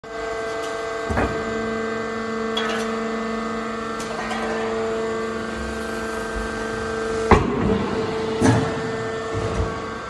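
Hydraulic scrap-metal baler running: a steady humming whine from its hydraulic pump as the lid closes down over a load of metal shavings, with several sharp metal clanks, the loudest about seven seconds in.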